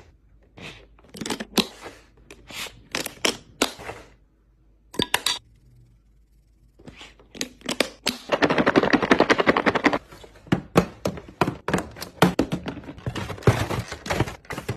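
Sharp clicks, knocks and clatter of objects being handled and set down while a refrigerator is organized, with a dense crackling rattle lasting about two seconds past the middle.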